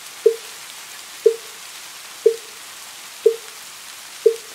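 A wooden fish (mu yu) struck at a slow, steady pace of one knock a second, five knocks in all, each ringing briefly, over steady falling rain.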